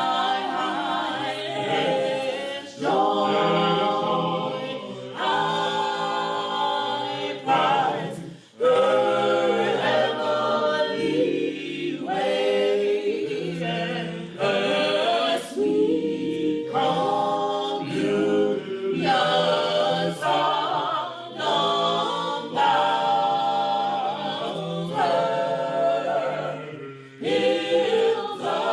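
A choir singing a cappella gospel in sustained phrases, several voice parts together with no instruments, and brief breaks between phrases.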